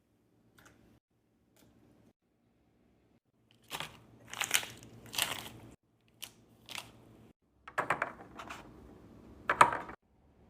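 Food packaging and containers being handled during a restock: a few faint clicks, then irregular crinkling, rustling and knocking that grows loudest near the end.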